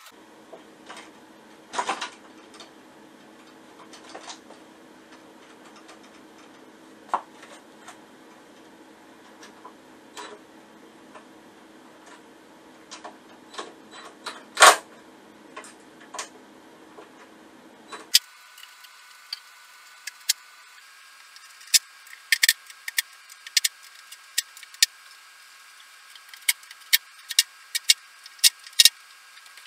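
Irregular clicks and taps of small tools and parts being handled during hands-on repair work, with a sharper knock about halfway through and a quick run of clicks near the end. Under them is a faint steady hum that jumps higher in pitch about 18 seconds in.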